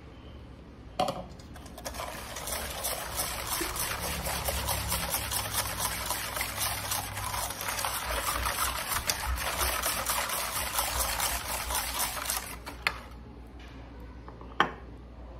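Batter of eggs, sugar and oil being beaten by hand with a whisk in a bowl: a fast, steady run of wet whisk strokes lasting about ten seconds, starting about two seconds in. A single knock on the bowl comes just before it.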